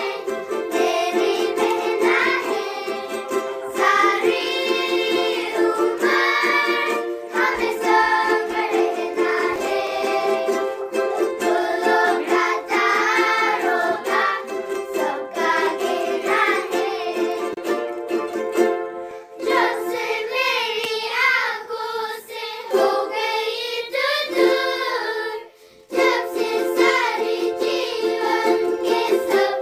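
A group of children singing a song while strumming ukuleles, with a brief pause near the end.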